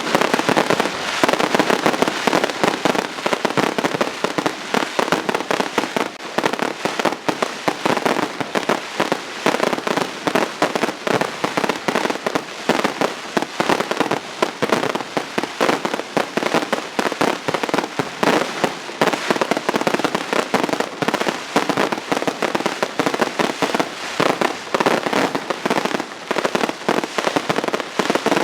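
Fireworks display: a dense, continuous barrage of rapid bangs and crackles, many reports each second without a break.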